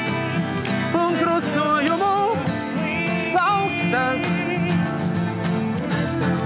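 Acoustic band playing live: steel-string acoustic guitars strummed over a cello's low notes, with a melody on top that slides and wavers in pitch.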